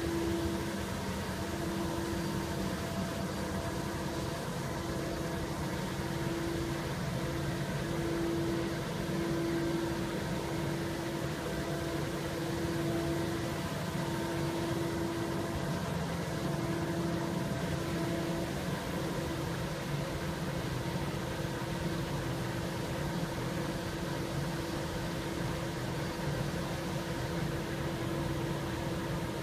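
Street sweeper running steadily: a constant mechanical hum with a held mid-pitched tone that drops out briefly a few times in the first half.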